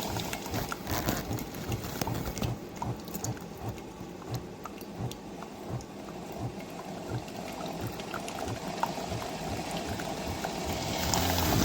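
Single-serve coffee maker brewing: its pump running with rapid low pulsing while hot water bubbles and gurgles through the pod into the cup.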